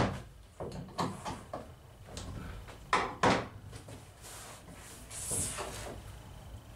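Wooden battens knocked and slid about on a fibreglass boat hull: a few sharp knocks, the loudest two close together about three seconds in, and a scraping slide a little after five seconds in.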